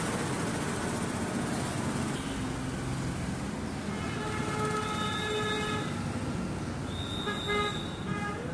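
Steady street traffic noise with vehicle horns honking: one horn sounds for about two seconds starting about four seconds in, and another sounds briefly about seven seconds in.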